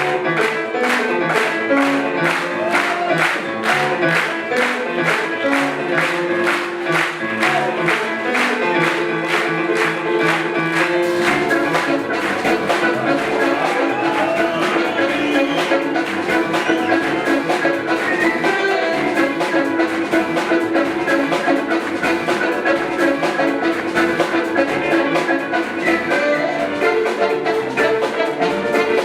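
Live jazz-fusion band with a horn section playing. Quick, evenly spaced drum strokes drive the first part; about eleven seconds in, the bass enters under held horn and keyboard lines.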